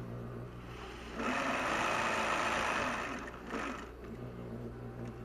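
Commercial sewing machine: its motor hums steadily, and from about a second in it runs for about two and a half seconds, stitching with a louder whirring sound before dropping back to the hum.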